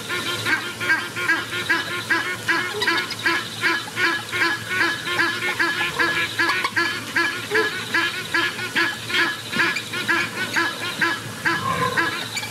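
Rapid, evenly repeated honking calls, about three a second, keeping on steadily.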